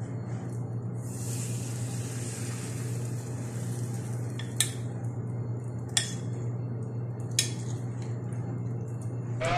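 Cabbage-and-egg batter sizzling in hot oil as a spoonful drops into the pan, then a metal spoon clinking against a glass bowl three times, about a second and a half apart, over a steady low hum.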